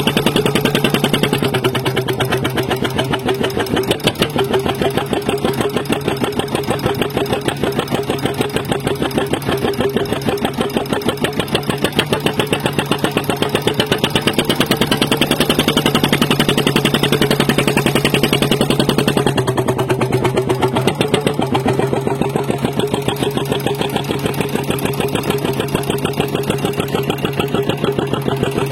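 An engine running steadily with a fast, even beat and a steady hum, with no change in speed.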